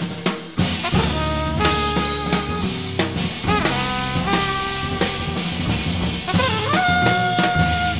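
Jazz trio of trumpet, bass and drum kit improvising. The trumpet plays short phrases of held notes over drums and a low bass, and ends the passage on one long note near the end.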